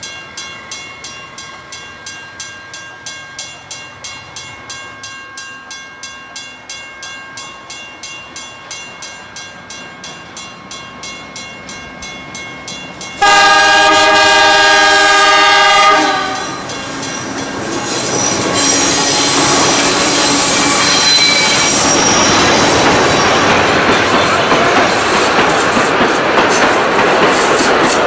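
A steady ringing, about three strokes a second, until an Alco 930 class diesel locomotive sounds its horn for about three seconds. Then the locomotive and its heritage passenger carriages run past close by, engine and wheels on rail growing louder.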